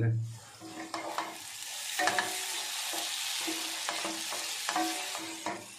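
Bitter gourd thokku sizzling in oil in a pan while a wooden spatula stirs and scrapes through it, a few scrapes standing out over a steady hiss. The oil has separated out of the mix, the sign that the thokku is done.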